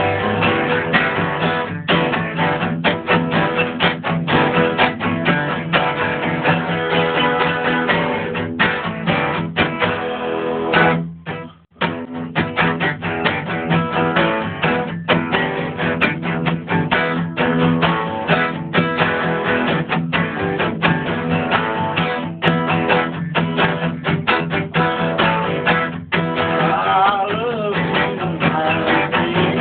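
Guitar playing, a dense run of picked or strummed notes that breaks off briefly about eleven seconds in and then carries on.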